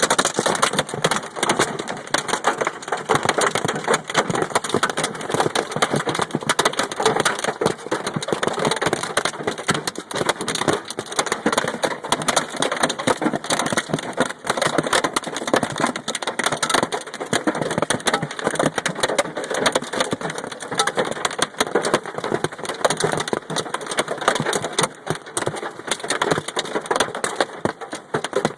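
Hail pelting down hard: a dense, unbroken clatter of hailstones striking hard surfaces.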